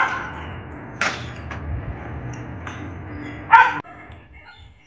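A dog barking: one short, sharp bark about three and a half seconds in, the loudest sound here, with a single sharp click about a second in over a steady low background noise that drops away just after the bark.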